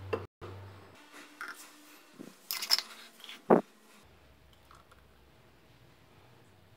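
A few short clicks and knocks of glassware being handled, a glass blender jar and a drinking glass, with the loudest knock about three and a half seconds in. After that it falls almost quiet.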